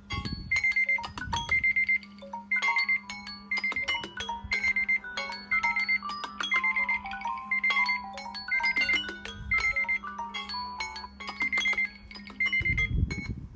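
Phone clock app alarm tone ringing: a short high beep repeating about once a second over a bright, marimba-like melody.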